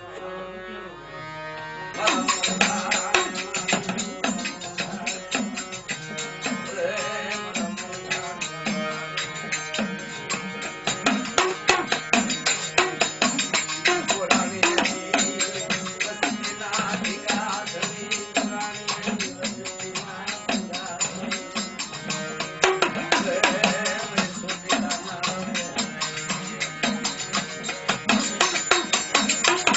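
Gujarati folk music: drums play a dense, fast, steady beat over held melodic tones, the drumming coming in strongly about two seconds in.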